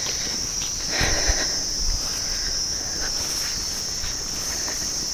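Insects droning in one steady high-pitched buzz, with a couple of soft low thumps about a second in and near two seconds.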